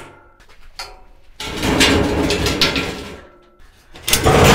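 Steel box-section workbench leg being pulled out of the steel frame by hand: a long metal-on-metal scrape with a faint ringing tone, then a second loud scrape starting near the end.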